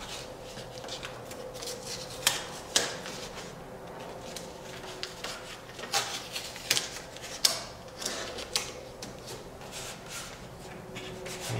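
Hands pressing and smoothing tape on a carbon fiber rear wing: irregular light clicks and rustles, with a few sharper taps.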